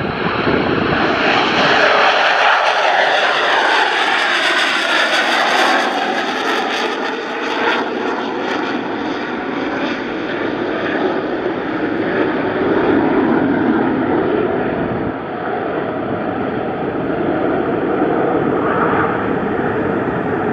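Aircraft engines running loud and continuous, the high hiss strongest in the first several seconds and then easing while the lower roar carries on.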